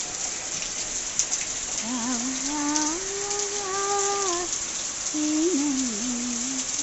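Heavy rain pouring steadily. From about two seconds in, a person's voice hums a few long, wavering notes over the rain.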